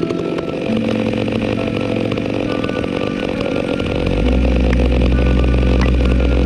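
Chainsaw running steadily at speed, with a strong deep low hum joining about four seconds in.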